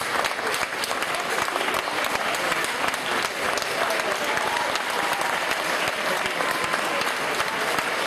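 Stadium crowd applauding steadily, dense clapping with a few voices calling out over it.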